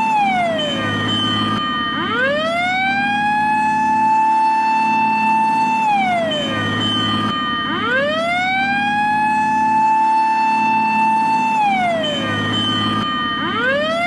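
Japanese fire engine siren wailing in slow cycles. Each note rises over about a second, holds high for several seconds, then slides down; it falls at the start, runs through two full rise-hold-fall cycles, and starts rising again near the end.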